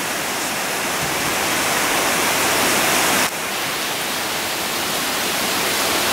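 Heavy hurricane rain pouring down steadily in a dense hiss, with a sudden small drop in level a little over three seconds in.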